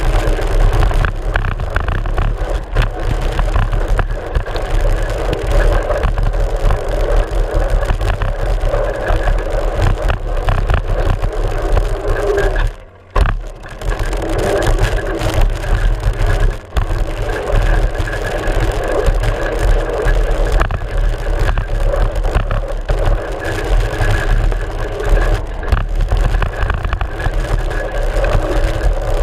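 Mountain bike rolling fast over a dirt trail, heard from a GoPro mounted on the front fork: a steady loud rumble of tyre and wind with constant clattering knocks over rough ground. The noise dips briefly about halfway through.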